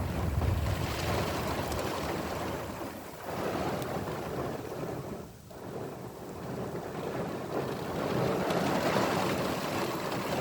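Storm wind gusting with heavy rain, the wind buffeting the microphone; it surges and eases, with a brief lull about five seconds in.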